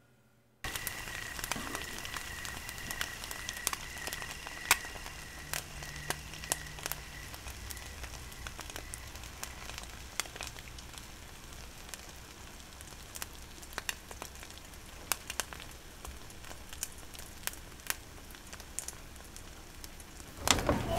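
A steady crackling hiss with many scattered sharp pops, starting about half a second in after a brief silence.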